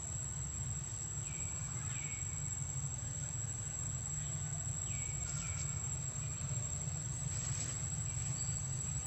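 Steady high-pitched insect drone of crickets or cicadas, over a low rumble, with a few short falling chirps.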